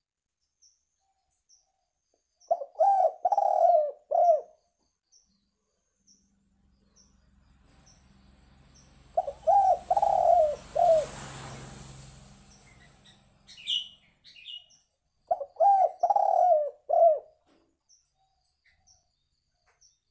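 Spotted dove (tekukur) cooing: three phrases about six seconds apart, each a run of four coo notes. Behind the middle phrase a rushing noise swells and fades.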